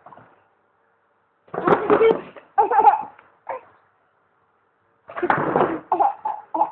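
Baby laughing and babbling in short bursts, one cluster soon after the start and another near the end, with a pause between them.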